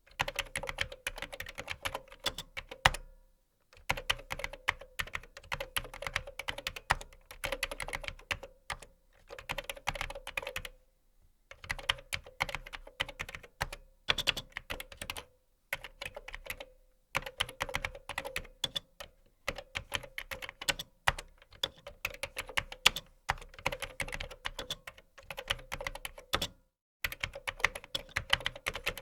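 Typing on a computer keyboard: fast runs of key clicks broken by short pauses a few times.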